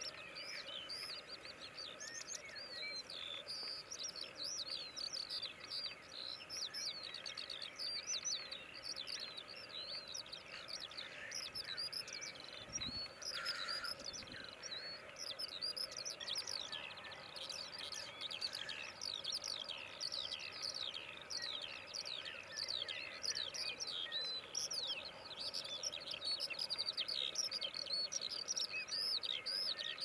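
Black grouse lek: a steady low bubbling chorus from the displaying males sits under a dense stream of quick, high, falling chirps from other birds.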